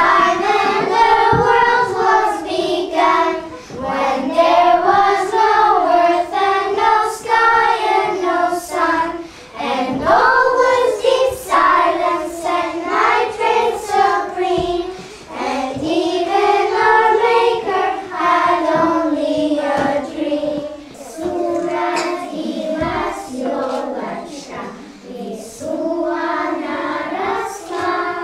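A group of young children singing a song together, phrase by phrase with short pauses between the lines.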